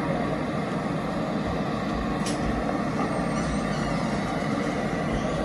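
Steady city street traffic: the rumble of passing vehicles' engines and tyres, with one short sharp click about two seconds in.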